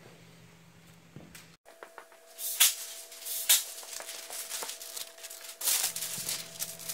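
Masking paper crinkling and rustling as it is handled and folded over the panel, with a few louder crackles about two and a half, three and a half and five and a half seconds in.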